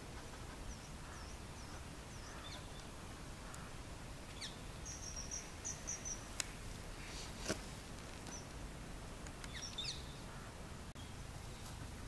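Faint, high, short bird chirps and twittering calls, with a brief run of buzzy notes midway, over a steady outdoor background hum; two sharp clicks sound in the middle.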